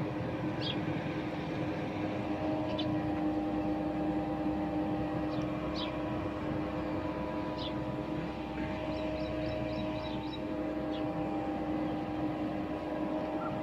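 Tubewell pump running at a steady speed, a constant mechanical drone that holds one pitch. A few short, high chirps sound over it, with a quick run of about six near the middle.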